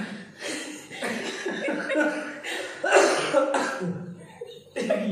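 Men laughing and chuckling in a run of breathy bursts.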